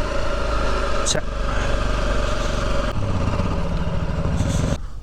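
Off-road motorcycle engine running while riding a dirt trail, with a steady rush of noise; the engine note changes about three seconds in, and the sound cuts off abruptly near the end.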